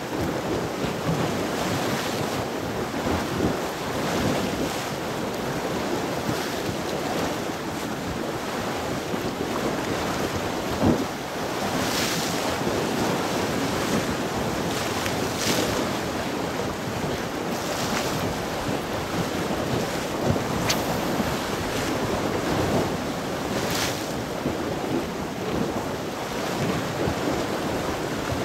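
Sea waves washing against the shore and wind buffeting the microphone: a steady rushing noise with a few brief louder surges now and then.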